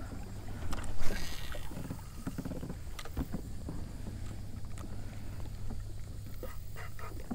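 Kayak on the water with no talking: a loud splashing rush of water about a second in, then scattered light knocks and clicks against the hull over a steady low rumble.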